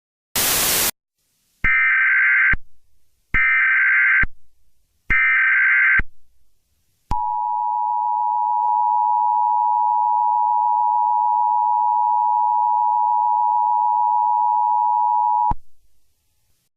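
Emergency Alert System activation. A half-second burst of noise comes first, then three screeching digital SAME header bursts of about a second each. Then the two-tone EAS attention signal (853 and 960 Hz together) is held steadily for about eight seconds before it cuts off.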